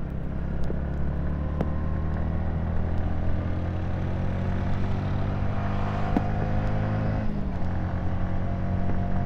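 Yamaha R15 V3's single-cylinder engine running steadily under way, picked up by a front-mounted action camera's built-in microphone. The engine note drops slightly about seven seconds in.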